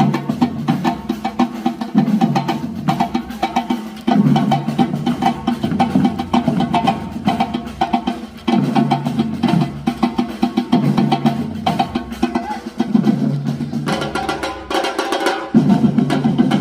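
A live percussion band playing a fast, busy drum rhythm, with many rapid strikes.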